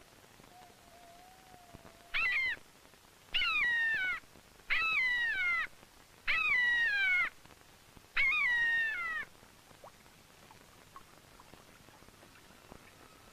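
A bird of prey calling in flight: five high cries about a second and a half apart, each sliding down in pitch. The first cry is shorter than the rest.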